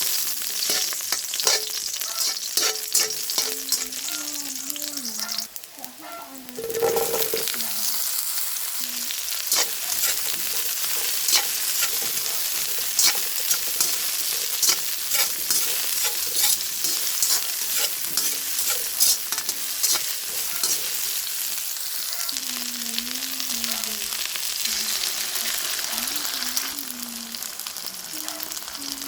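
Sliced luffa (sponge gourd) being stir-fried in a hot pan: steady sizzling with frequent clicks and scrapes of a spatula stirring. The sizzling dips briefly about six seconds in, then comes back in a loud burst.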